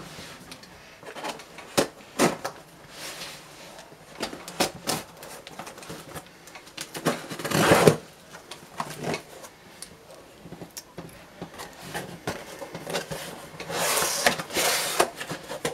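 A cardboard shipping box being opened: scissors scrape along the taped seam and the cardboard flaps are pulled open, with scratchy rubbing and scattered sharp clicks. The loudest bursts come about halfway through and near the end.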